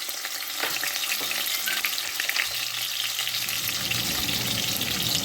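Sliced onions frying in a shallow layer of oil in a pan, sizzling and crackling steadily. The sound grows fuller and a little louder about three seconds in.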